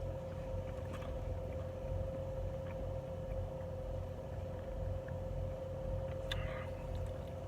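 Steady low hum with a faint constant tone behind it, and a few soft clicks of a fork against a plate during eating, the clearest one near the end.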